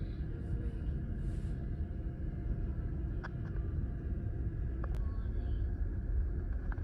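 Steady low rumble aboard a passenger ferry under way, with a few faint clicks.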